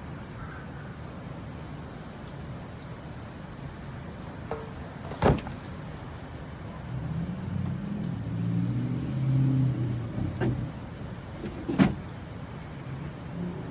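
Heavy rain coming down steadily, with two sharp knocks about five and twelve seconds in and a low rumble that swells and fades between them.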